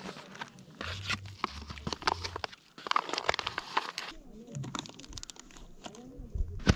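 Crinkling of a plastic instant-food packet, mixed with irregular sharp clicks as a spoon works in a pot.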